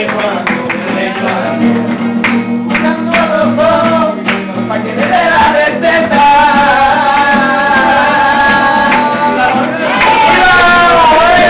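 Acoustic guitar being strummed while a man sings in wavering, long-held notes. Sharp percussive knocks sound along with it in the first half.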